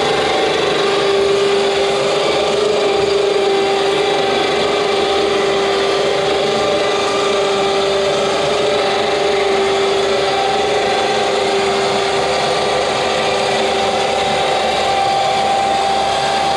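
Automotive winch motor running steadily as it rolls an observatory's roll-off roof open on V-groove casters: a loud, noisy drone with a steady whine.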